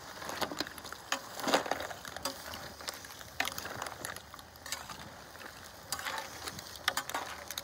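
Metal slotted spatula stirring raw shell-on shrimp, clams and diced surimi and vegetables in a large pot: irregular scraping and clattering of shells and metal, loudest about a second and a half in.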